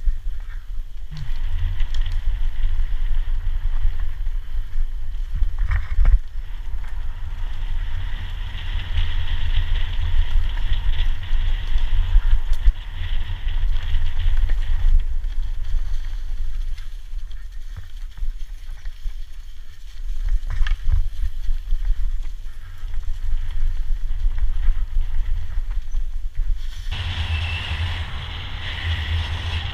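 Wind buffeting the microphone of a mountain bike rider's camera during a fast downhill descent, with knocks and rattles from the bike on the rough forest trail. Near the end the sound changes to a smoother, brighter rush as the bike rolls onto asphalt.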